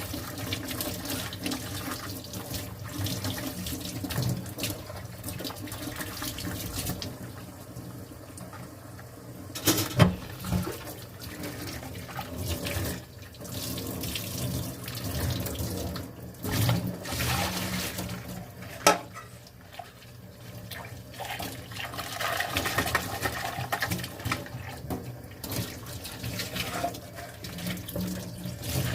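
Tap water running into a kitchen sink while dishes are washed by hand, with splashing and a few sharp knocks of dishes against the sink; the loudest knocks come about ten seconds in and just before nineteen seconds.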